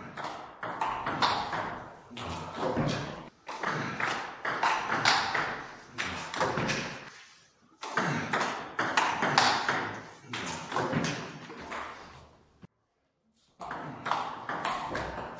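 Table tennis rallies: the ball clicking off the paddles and bouncing on the table in quick succession. A brief silence near the end, then another rally starts.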